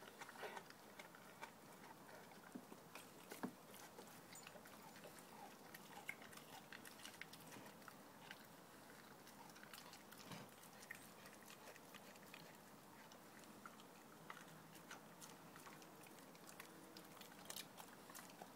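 Dog chewing and tearing at a giant raw steak in a metal bowl. The sound is faint, irregular wet smacks and clicks of its jaws, with a few louder ones scattered through.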